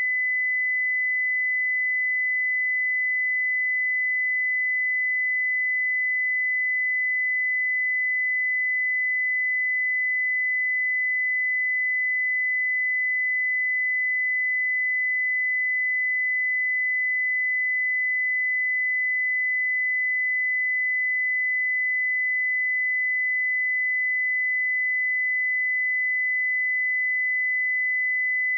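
A pure 2008 Hz sine-wave test tone, held steady at one pitch and one level, with no other sound.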